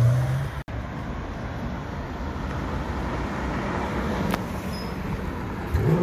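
A McLaren 720S's V8 engine is heard briefly and cut off suddenly under a second in, followed by road and traffic noise as a Porsche Panamera drives past. Near the end the Panamera's engine rises in pitch as it accelerates away.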